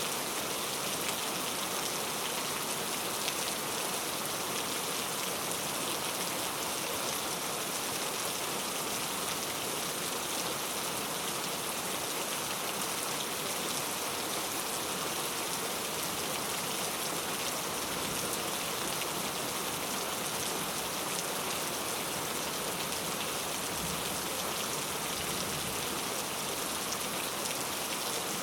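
Steady rain falling and pattering on a surface, a dense even hiss with fine drop ticks, unchanging throughout.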